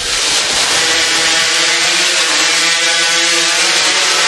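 Two modified racing chainsaws (hot saws) with big two-stroke engines, coming up suddenly at the start and running flat out with a steady high engine note as they cut through logs.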